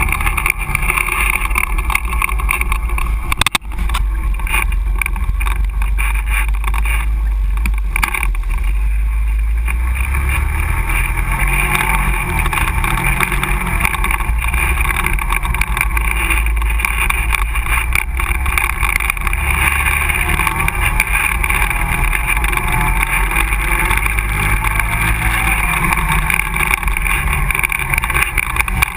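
ATV engine running steadily as the quad drives along a rough dirt trail, heard from a camera mounted on the machine itself, with scattered knocks and rattles from the bumps. The sound drops out briefly about three and a half seconds in.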